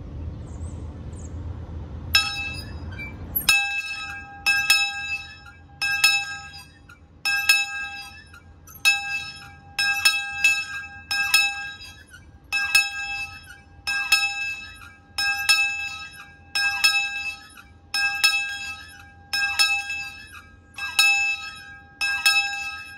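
The brass bell on a Laclede-Christy steam locomotive is swung back and forth, its clapper striking about every three-quarters of a second with a bright, lingering ring. A low rumble comes before the strikes begin, about two seconds in.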